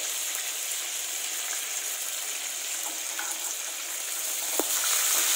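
Mint, coriander and curry leaves frying in hot oil in a kadai: a steady sizzle, stirred with a perforated metal spatula. The sizzle gets a little louder near the end, with one click of the spatula about four and a half seconds in.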